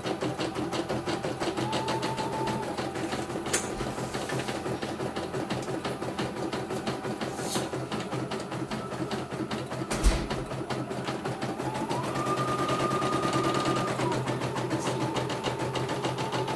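CNY E900 computerized embroidery machine stitching a design, a steady fast run of needle strokes. A motor whine rises in pitch and holds for about two seconds about three quarters of the way through, and there is a single knock about ten seconds in.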